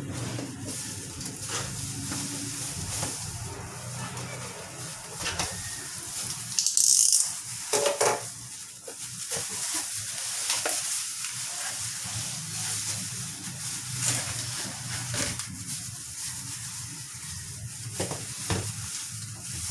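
Cardboard shipping box being cut open and unpacked by hands in crinkly plastic gloves: rustling, scraping and small clicks of cardboard and plastic film. A louder rasp comes about seven seconds in, with another about a second later.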